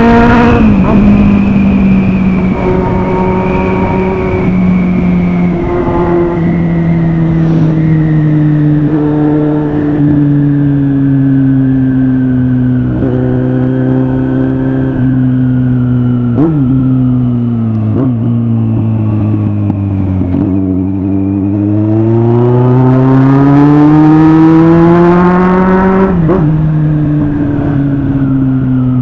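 Kawasaki Z800 motorcycle's inline-four engine under way: the revs fall slowly for about twenty seconds with a few short drops at gear changes, climb again as it accelerates, then fall suddenly at a shift near the end.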